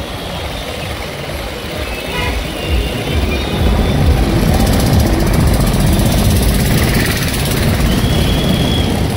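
Motorcycle ride: engine running with heavy wind rumble on the microphone, which gets louder about three seconds in.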